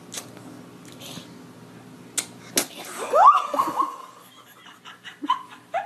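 Several sharp slap-like smacks, then a short, loud squeal that rises and falls in pitch about three seconds in, with a few smaller smacks and cries near the end, over a steady low hum.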